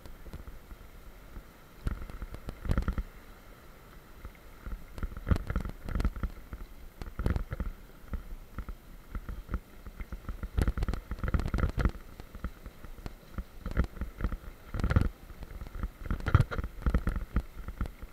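Mountain bike rolling fast down a leaf-covered dirt trail: uneven rattles and thumps as it hits bumps in the track, over a constant low rumble.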